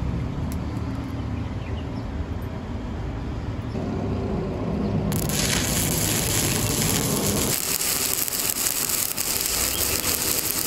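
Stick (shielded metal arc) welding arc crackling and sizzling steadily as the rod burns. The sound changes abruptly about halfway through, turning brighter and thinner.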